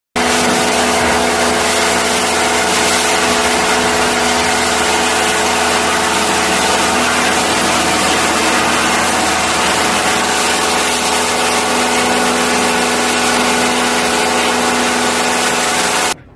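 A machine running steadily: an even loud hiss over a constant hum, which cuts off suddenly near the end.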